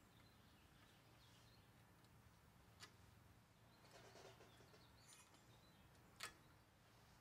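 Near silence, broken by two faint sharp clicks and a brief scrape: thin steel brake-pad hardware clips being worked out of a caliper bracket.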